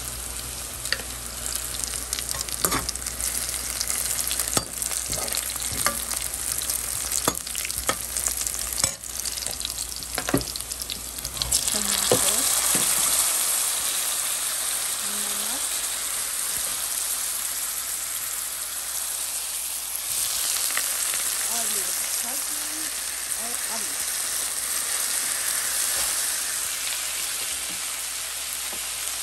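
Sliced onions and dried red chillies sizzling in hot oil in an aluminium pan, with a metal slotted spoon scraping and clicking against the pan as it stirs. About twelve seconds in the sizzle turns louder and fuller as tomato pieces go into the oil, and it rises again later on.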